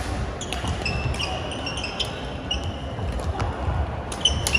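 Badminton rally on an indoor hardwood court: sharp racket strikes on the shuttlecock spaced irregularly, sneakers squeaking on the court floor several times, and thudding footsteps.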